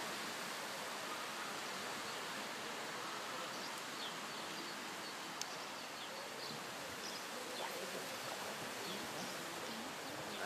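Outdoor ambience: a steady hiss of background noise with faint, scattered short chirps, likely small birds, and no clear voices.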